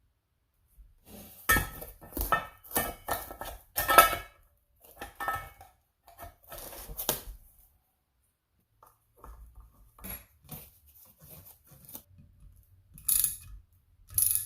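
Small metal tools and parts clinking and clattering as they are handled: a quick run of sharp knocks for several seconds, then lighter scattered ticks and two short scrapes near the end.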